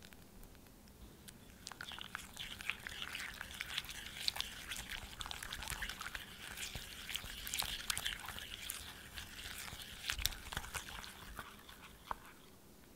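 Raw egg being whisked by hand into creamed butter and sugar in a glass bowl: a wet, sticky squelching with many light clicks. It starts about a second in and stops near the end.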